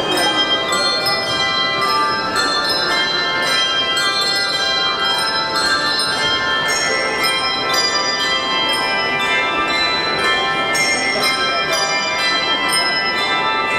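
A handbell choir playing a piece of music: many handbells struck in quick succession, their tones ringing on and overlapping.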